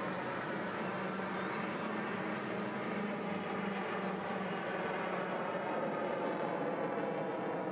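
Aircraft engine droning steadily as a plane flies over, a constant hum over a wash of noise that swells slightly.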